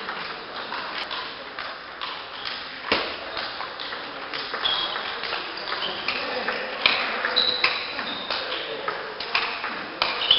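Table tennis rally: the celluloid ball clicking sharply off the rackets and the table in an irregular back-and-forth, with some louder hits.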